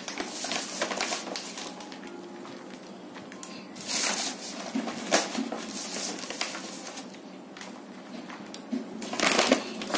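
Dry, crumbly cow-manure compost being poured from its bag and sprinkled by hand into a plastic bucket of dry soil: a soft rustle and patter of falling crumbs, with a few louder rustles of the bag about four seconds in and near the end.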